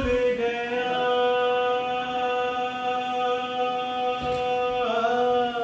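A man singing one long held note without accompaniment, the pitch wavering briefly near the end.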